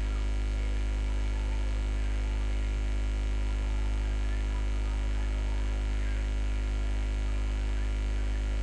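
Steady low electrical mains hum with a stack of higher overtones, unchanging throughout.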